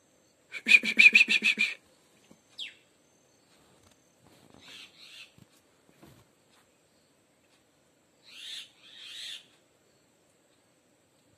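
A loud, rapid pulsed animal call, about a second long, near the start, followed by fainter hoarse calls around the middle and near the end.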